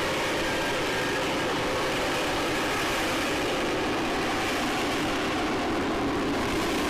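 Steady aircraft engine noise, a continuous even roar with no pauses or changes.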